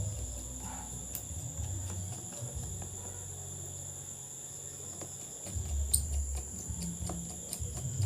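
A steady, high-pitched insect trill, typical of crickets, under uneven low rumbling and a few faint clicks.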